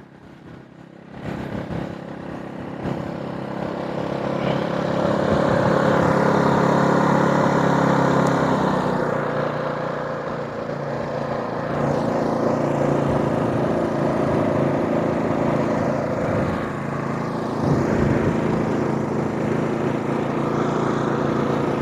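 AIMS 3200-watt inverter generator's four-stroke OHV engine running with eco mode off. The steady engine sound grows louder over the first several seconds and then holds.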